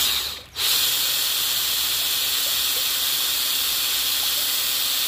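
Electric drill turning a drill-powered water pump: a steady, loud hiss of water jetting out of the pump's outlet, with the drill's faint steady hum underneath. It starts with a short first burst, then runs evenly from about half a second in.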